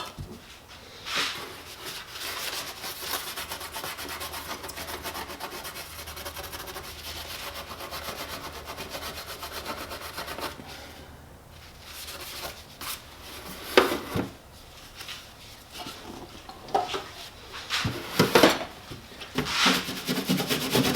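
Hand sanding on the painted plastic of a motorcycle's rear case around the emblem holes, taking off paint and old emblem adhesive. Quick, even back-and-forth strokes for most of the first half, a short pause, then slower, separate, louder strokes.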